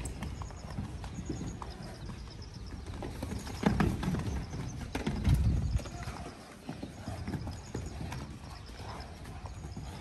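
A horse moving about, its hooves clip-clopping, with two louder moments about three and a half and five seconds in.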